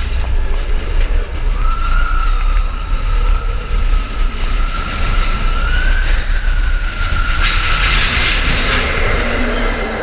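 Expedition Everest roller coaster train running on its steel track through a tunnel: a heavy low rumble, with a long steady high squeal from about two seconds in. Near the end the squeal gives way to a rush of hissing noise.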